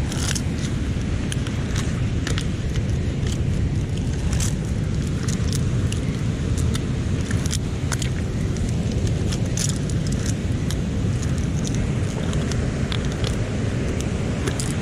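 Mussel shells clicking and crackling irregularly as clusters are pulled off the rock by gloved hands and dropped into a bucket, over a steady low rumble of wind and surf.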